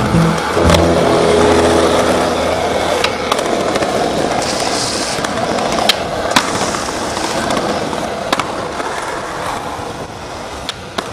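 Skateboard wheels rolling over rough pavement with a steady grinding hiss. Sharp wooden clacks come every few seconds, including a tail pop and landing about six seconds in.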